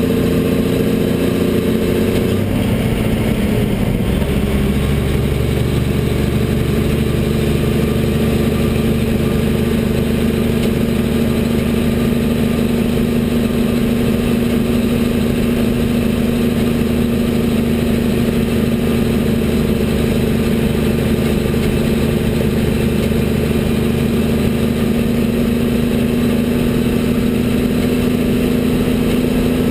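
Military 5-ton 6x6 dump truck's Cummins six-cylinder diesel engine running under way, heard from inside the cab. About two to four seconds in, the engine note drops as the driver shifts up a gear, then it runs steadily in the new gear.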